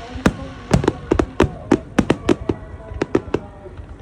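Aerial fireworks going off in rapid succession: a fast, irregular string of sharp bangs, about three or four a second.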